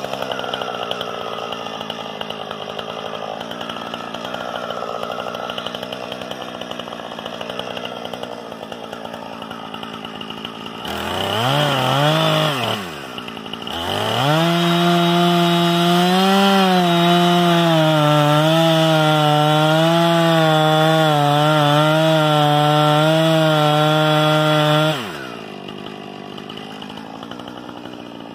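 Husqvarna 460 Rancher two-stroke chainsaw idling, revved briefly about eleven seconds in, then held at full throttle for about ten seconds while making the felling cut through a small tree trunk behind the notch, its pitch dipping slightly under the load of the cut. It then drops back to idle.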